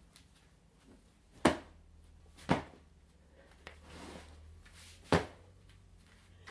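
Three blows on a stuffed animal, each a dull thump: two a second apart, then one more about two and a half seconds later, with a quieter drawn-out noise between the second and third.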